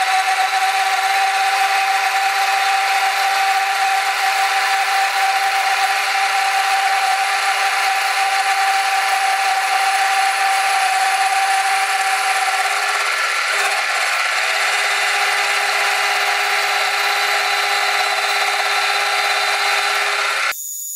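Milling machine spindle driving a disc (slitting-saw) cutter through aluminium, cutting the cooling fins of a motor radiator: a loud, steady whine over the noise of the cut. The sound drops sharply near the end.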